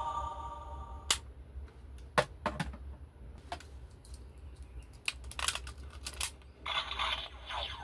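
Scattered sharp plastic clicks and taps from a Super Sentai toy transformation gun being handled between its sound effects, with a quick run of clicks about five to six seconds in.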